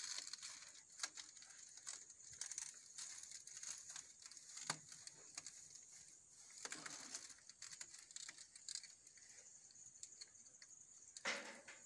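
Faint rustling and crackling of dry coconut coir fibre being handled and pressed into place by hand, with scattered small clicks.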